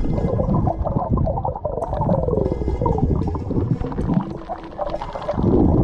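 Underwater sound picked up through a camera's housing: water rushing and gurgling bubbles, full of short wavering and sliding pitches, as a diver swims.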